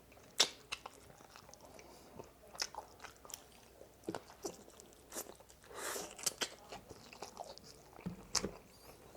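A person chewing and biting into food at a mukbang, with irregular crunches and sharp mouth clicks scattered through, heaviest a little after the middle.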